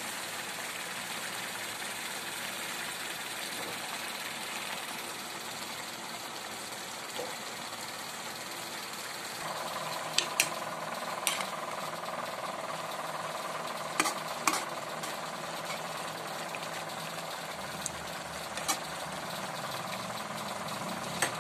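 Banana blossom in coconut milk boiling in a wok with a steady bubbling hiss. About halfway a steady hum comes in, and a metal spatula stirring the dish knocks and scrapes against the pan several times.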